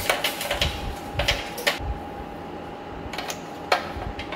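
Irregular clicks and rattles of a wire being pulled through a hole in a steel frame rail and knocking against the metal, busiest in the first two seconds, with a sharper single click near the end.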